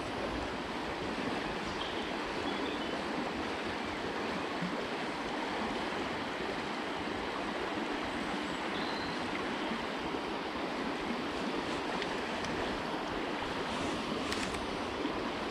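River water rushing steadily over a shallow riffle, an even, unbroken flow, with a faint click or two near the end.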